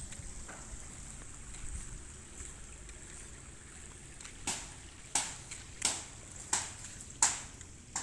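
Footsteps on a concrete path, a regular step about every 0.7 seconds starting about halfway through, over a steady faint high-pitched hiss.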